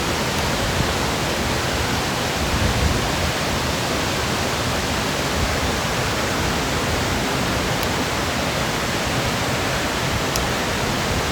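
Crystal Creek waterfall: a steady rush of falling water with no change in level.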